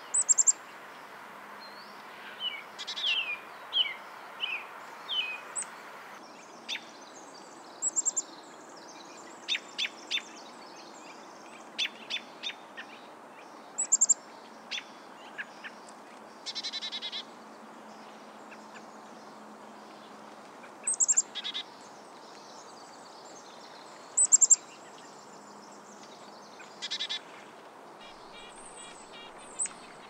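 Small birds calling: many short, high chips and a few brief trills scattered throughout, over a steady background hiss.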